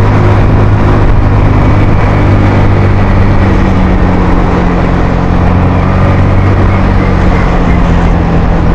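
Suzuki Skydrive scooter's single-cylinder engine held at steady throttle, labouring as it pulls a rider and passenger up a steep climb.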